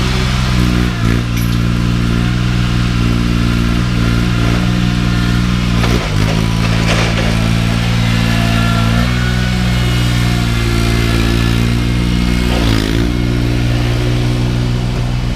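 Truck engine running steadily on the road, with its note dipping briefly in pitch about a second, six seconds and thirteen seconds in.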